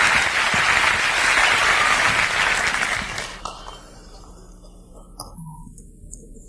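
Audience applause at the end of a live song, fading out about three seconds in and leaving a few faint clicks.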